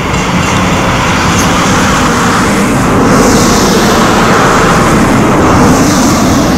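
Norfolk & Western No. 475, a 4-8-0 steam locomotive, approaching: a steady rumble from its exhaust and running gear with bursts of steam hiss, growing louder in the first few seconds.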